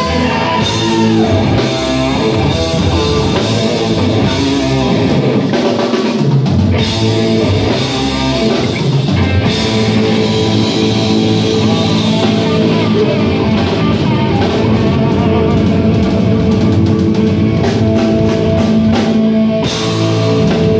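Live rock band playing loudly on electric guitar, bass guitar and drum kit.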